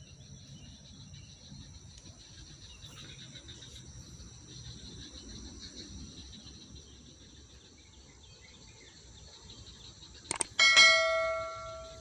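A steady high-pitched chorus of insects. Near the end a click is followed by a loud bell-like chime that rings with several tones and fades away; it is the loudest sound.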